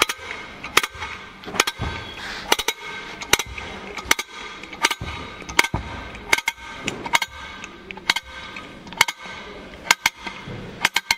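Air disc brake caliper's adjuster being wound back with a hand tool, giving sharp metallic clicks about every three-quarters of a second, coming a little faster near the end as the mechanism is driven back inside.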